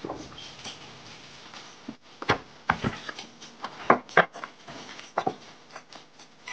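A series of irregular sharp knocks and clicks, about a dozen, thickest around the middle, over a faint background.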